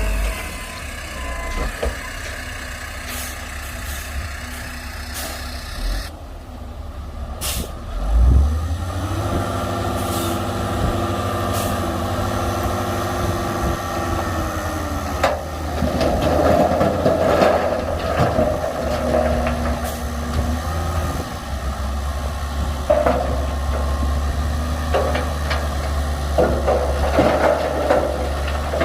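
Heavy diesel earthmoving machinery running with a deep, steady engine drone, a heavy thump about eight seconds in, and scattered clanks and knocks.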